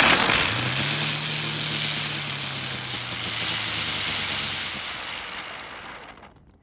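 Shogun jumbo ground bloom firework spinning on the ground, giving a loud steady hiss with a low hum underneath. The hiss eases off and stops about a second before the end as the firework burns out.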